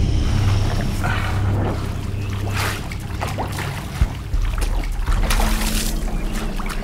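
Shallow stream water splashing and trickling as someone wades in it, with brief splashes about two and a half seconds in and again around five to six seconds in, over a steady low rumble.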